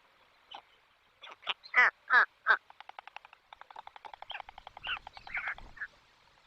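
Young white stork clattering its bill, a fast even train of clicks at about fifteen a second in the middle. Short falling calls come before and after it.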